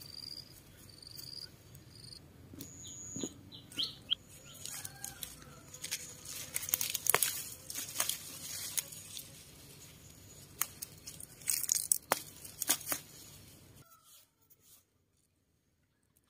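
Garden plants being handled by hand: rustling leaves and sharp snaps and tears of stems and roots as vegetables and weeds are pulled from the soil. A few short high bird chirps in the first three seconds. The sound drops to near silence about two seconds before the end.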